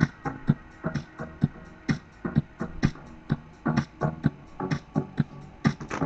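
Background music with a steady beat of sharp, punchy drum hits.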